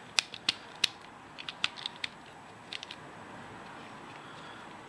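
Plastic pieces of a Vulcano twisty puzzle clicking and snapping irregularly as they are forced against each other, about a dozen sharp clicks over the first three seconds. The puzzle is jammed and won't turn.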